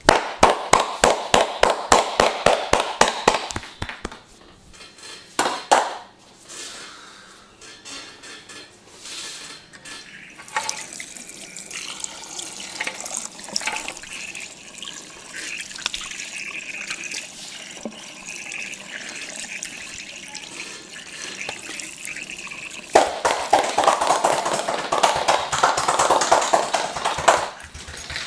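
Massage percussion on the body: quick, even slaps or strikes at about five a second, in a run at the start and another near the end. Between the runs come a few single knocks and softer rubbing.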